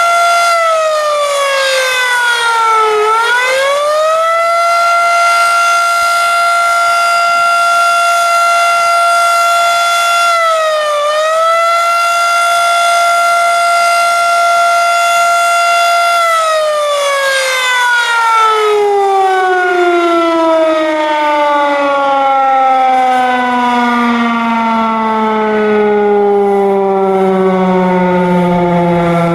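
Federal Signal Model 7A electromechanical warning siren sounding a steady, raspy tone, with a brief deep dip in pitch about three seconds in and a small one near eleven seconds. From about sixteen seconds it winds down, its pitch falling smoothly and steadily through the end.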